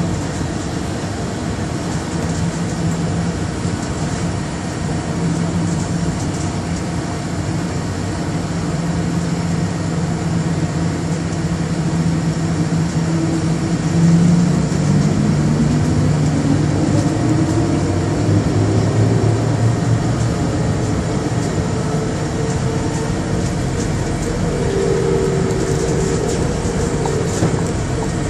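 Bombardier Innovia APM100 rubber-tyred people mover running, heard inside the car: a steady rumble with a traction-motor hum. About halfway through, a whine rises in pitch as the train picks up speed, and higher steady tones follow near the end.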